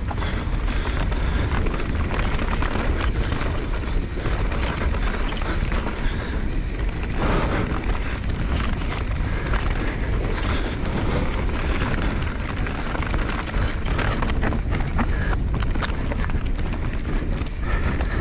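Mountain bike descending a dry dirt and stone trail: wind buffeting the microphone over the tyres' rolling noise, with frequent small clicks and clatters from the bike and stones.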